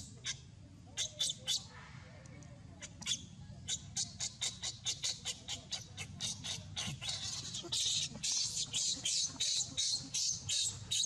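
Rapid series of short, sharp, high-pitched animal calls, a few at first and then about three to four a second from roughly four seconds in, growing louder and denser in the second half.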